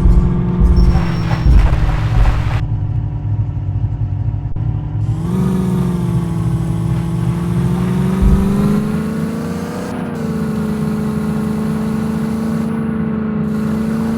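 Jeep engine running under load off-road, its pitch sinking and then rising again about five seconds in, with low rumbling thumps in the first couple of seconds.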